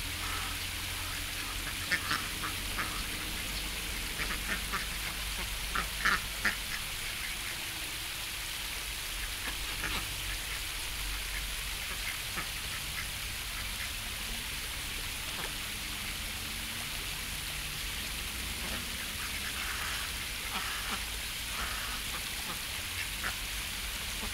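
Ducks quacking now and then over the steady rush of a shallow brook, with the loudest calls about two and six seconds in.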